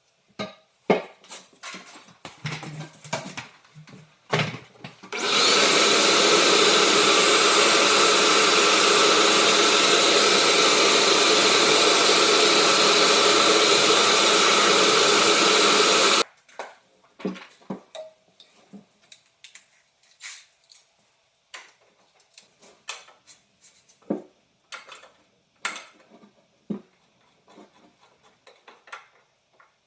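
A power tool runs steadily for about eleven seconds and cuts off abruptly, with scattered clicks and knocks of hand tools and parts being handled before and after.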